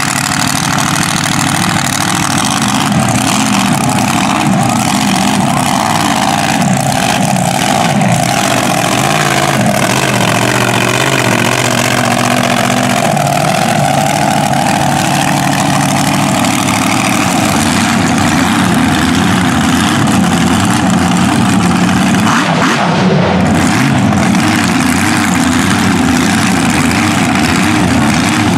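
Mega mud truck's big engine running loudly at low speed, its pitch drifting up and down a little as the throttle is blipped.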